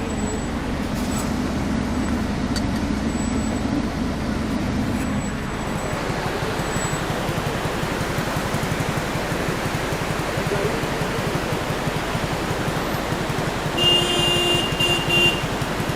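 Motor vehicle engine running under a steady rushing noise, with a horn sounding briefly near the end.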